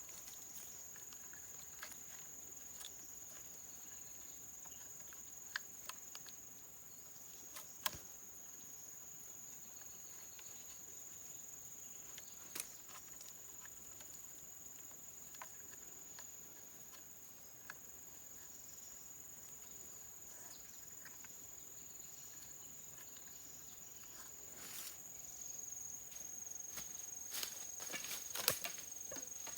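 Insects droning in one steady, high-pitched tone, with a few sharp clicks and knocks scattered through and more of them near the end.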